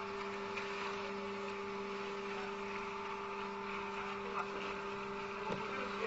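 Concrete mixer pump running steadily with an even two-tone hum, with a few faint knocks.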